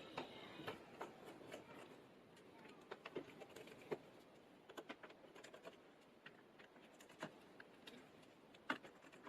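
Faint, scattered small clicks and taps of a precision screwdriver and tiny screws being handled on a smartphone's internal frame, with one sharper click about four seconds in and another near the end.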